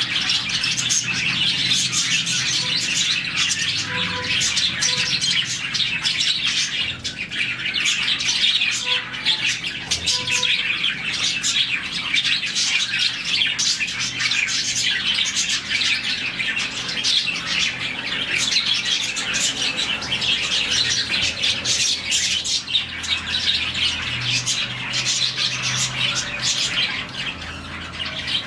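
A colony of about forty budgerigars chirping and chattering all at once in a dense, continuous mass of calls, with occasional squawks.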